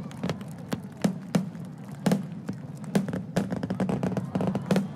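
Underwater fireworks bursting at the water's surface: a rapid, irregular string of bangs and crackles, several a second.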